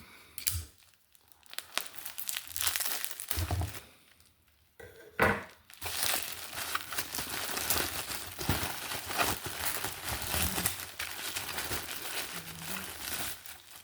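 Packaging being opened by hand: crinkling and tearing, patchy at first, with a sharp loud crackle about five seconds in, then steady dense crinkling.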